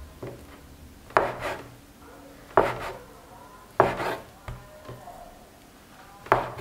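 Kitchen knife cutting through soft bread dough and knocking on a wooden cutting board: four sharp chops, roughly one every second and a bit.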